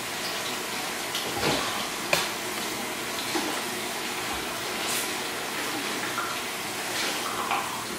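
Warm tap water running steadily from a faucet over hands and a soapy makeup sponge as it is squeezed and rinsed in a sink, with a few brief sharp sounds about one and a half, two and five seconds in.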